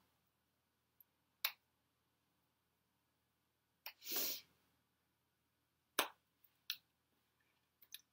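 Scattered soft slaps and clicks of hands meeting and touching during signing, about six separate taps spread through an otherwise quiet room, with one short noisy rush just after the middle.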